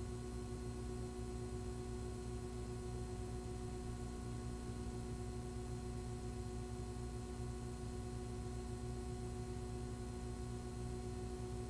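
Steady low electrical hum with a few faint steady tones above it and no other sound: the blank gap between segments of an old video recording.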